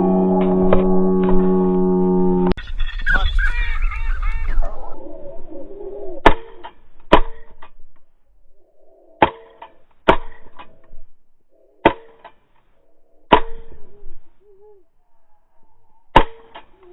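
A steady droning tone cuts off abruptly about two and a half seconds in. Then come seven shotgun shots, one to three seconds apart, each ringing out briefly, with faint bird calls between them.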